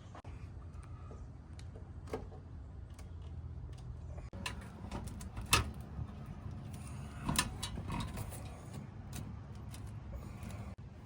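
A series of sharp clicks and knocks over a steady low hum, the loudest click about five and a half seconds in and a cluster of knocks a couple of seconds later.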